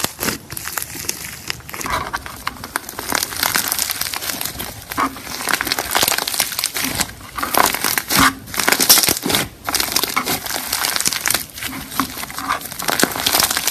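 Pink fluffy slime with foam beads mixed in being squeezed and stretched by hand, giving a dense, continuous run of small crackles and pops.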